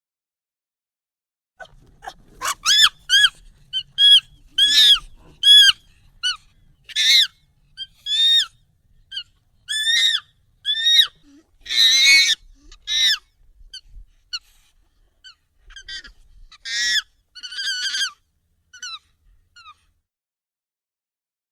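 Monkey calls, sped up and pitched up: a long series of short, high calls, each dipping in pitch, about one or two a second, stopping a little before the end.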